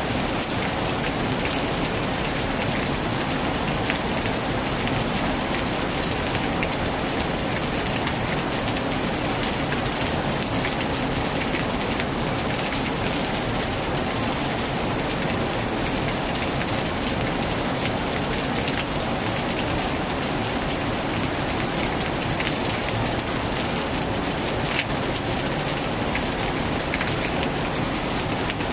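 Heavy rain falling steadily, a dense even hiss with scattered sharper ticks of individual drops.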